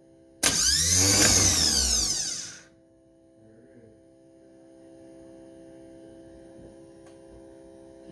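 A bench-tested GM starter motor, not mounted on the engine, spinning freely when energized: a sudden loud whine about half a second in that rises and then winds down over about two seconds, a sign that its power and S-terminal wiring works. Afterwards only a faint steady hum remains.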